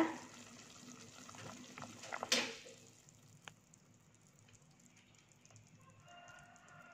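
A pot of beef and vegetable soup bubbling faintly on a gas stove. About two seconds in there is one sharp click as the burner is turned off, and after that it falls to near silence.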